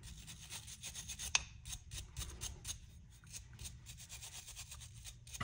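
Small wire brush scrubbing rust off a small metal tool part in quick, faint back-and-forth strokes, about three a second, with one sharper click about a second and a half in.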